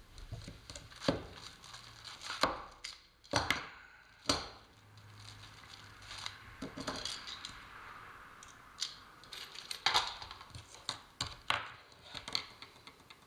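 Irregular hand-work noises from reinforcing a wall-mounted air-conditioner cleaning hopper: scattered sharp clicks and knocks with crinkly rustling of the material in between.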